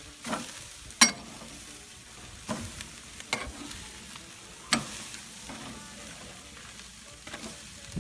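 Food sizzling on a charcoal grill, a steady hiss broken by about five sharp clicks or knocks, the loudest about a second in.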